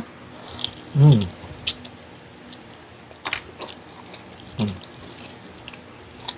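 Wet mouth sounds of someone eating bulalo soup: sharp lip-smacking and sucking clicks, with two short hummed 'mm's of enjoyment, about a second in and again past the middle.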